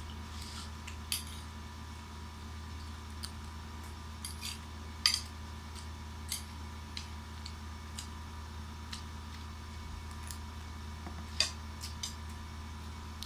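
Metal spoon clinking and scraping against a plate in scattered short taps, the loudest about five seconds in, over a steady low hum.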